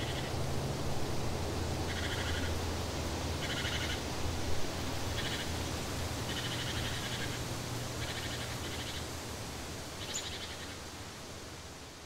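Short, buzzy trilling animal calls, repeated irregularly every one to two seconds, over a steady background hiss and a low hum. The sound fades out near the end.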